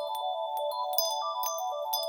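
Electronic ringtone-like music: a quick looping melody of short notes, with a steady high tone held above it and light ticks scattered through it.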